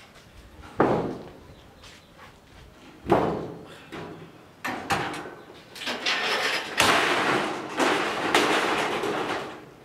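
Scrap iron pieces banging and scraping against a van's steel roof rack as they are hoisted up and loaded. A sharp bang comes just under a second in and another about three seconds in, followed by a longer stretch of scraping with several clanks.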